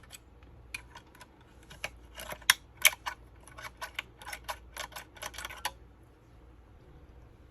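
Irregular sharp clicks and taps of small hard parts being handled during an electronics repair, for about five seconds, then stopping.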